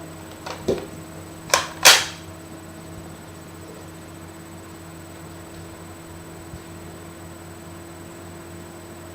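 Nerf Sharpshot dart blaster firing: a couple of small clicks, then two sharp snaps about a third of a second apart, followed by a steady low hum.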